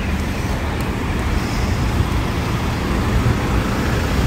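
Steady road traffic noise: an even rush of cars on the street, with no single standout event.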